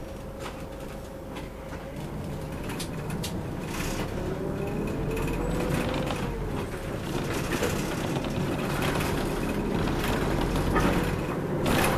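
City route bus engine running and pulling away, heard from inside the cabin. It grows louder as the bus gathers speed. A whine rises, dips about six seconds in and rises again, with small rattles and clicks from the cabin.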